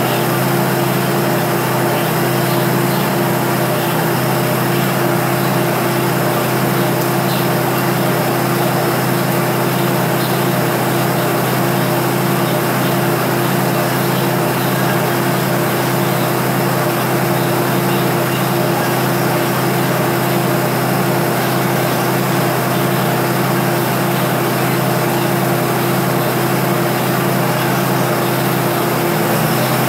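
Diesel train's engine idling at a standstill: a steady hum with one strong held tone over it.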